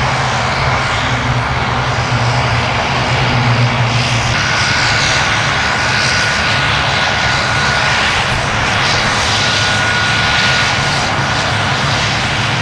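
Pilatus PC-9/A turboprop engine and propeller running loud and steady as the aircraft taxis. A thin steady high whine joins about four seconds in.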